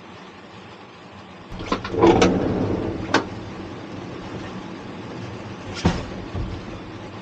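Clunks and knocks of a vehicle door or panel being handled, a cluster about two seconds in, one at about three seconds and another near six seconds, over a steady hiss.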